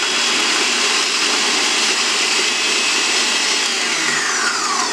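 Electric mixer-grinder's chopper attachment running steadily, its blade finely chopping onion, garlic, ginger, green chillies and herbs. About four seconds in its whine starts falling as the motor slows down.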